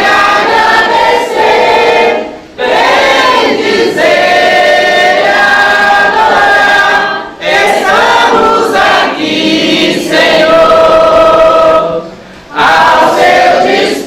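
A group of people singing a Catholic devotional hymn together during a rosary prayer, in long held phrases with short breaths between them.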